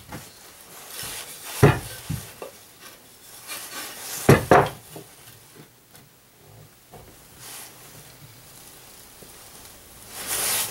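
Small plywood pieces handled and set against each other on a table: light wooden knocks about a second and a half in and twice close together around four seconds in, with soft rustling between and a burst of rustling near the end.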